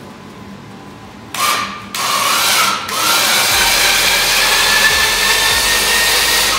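Badland 1500 lb electric winch running under load, reeling in its cable to pull a scissor lift's legs together and raise it. It gives a short burst about a second and a half in, another half a second later, then runs steadily from about three seconds with a whine that climbs slightly in pitch. The first part of the lift is hard: the arms' angle is too shallow, which puts the linkage in a bind until it gets past that point.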